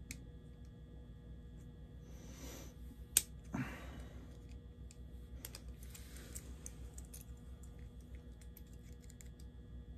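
Light clicks, taps and scrapes of small model-locomotive parts being worked by hand, with one sharp click about three seconds in and a few brief rustling scrapes.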